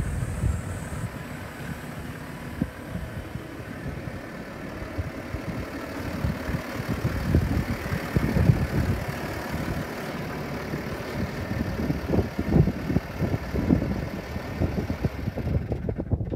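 Case IH Puma 165 tractor's six-cylinder diesel engine idling steadily, with wind buffeting the microphone in irregular low gusts.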